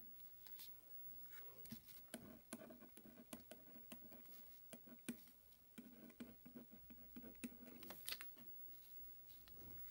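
Faint, scattered taps and scratchy rustles of pencil drawing on paper on a wooden table, with a sleeve brushing close to the microphone; the taps are busiest through the middle.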